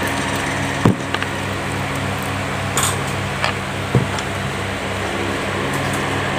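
Steady hum of an electric fan running in a small room, with a few faint clicks and taps from eating fried chicken by hand.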